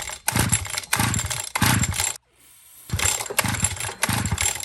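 Small gasoline engine on a trash-found bike firing on starter fluid without its carburetor, catching in short bursts of about half a second, each dropping in pitch as it dies away, with a brief pause about two seconds in.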